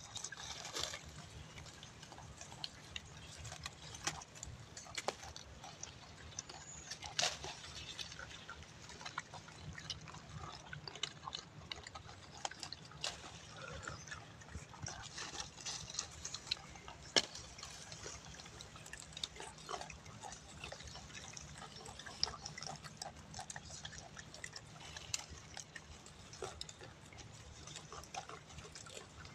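Scattered faint snaps, crackles and rustles of bush branches and dry leaf litter as gray langurs climb and pull at wild karonda bushes to feed.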